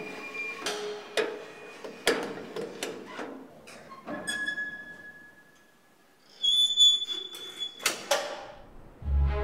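A series of sharp metallic knocks and clanks, then two drawn-out squeaks, the second higher and louder, as of old machinery parts moving. Music with a deep low note comes in right at the end.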